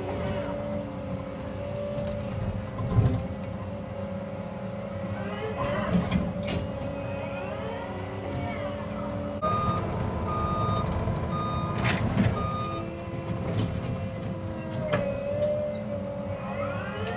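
Cat 306 mini excavator's diesel engine running steadily with its hydraulics working, with occasional sharp knocks and snaps. Midway through, a reversing alarm beeps about five times at an even pace.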